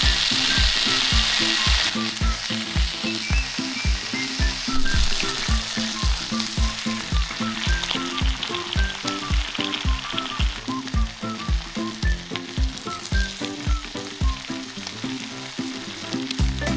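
Food sizzling in a frying pan, a steady frying hiss that is strongest in the first couple of seconds. Background music with a steady beat plays under it.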